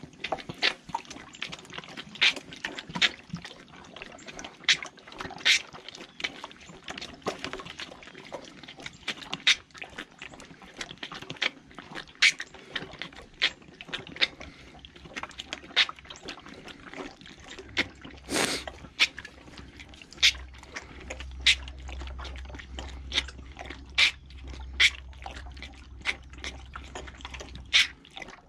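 A calf sucking milk from the nipple of a large nursing bottle: irregular wet smacks and slurps, about one a second, with one longer, louder slurp a little past halfway.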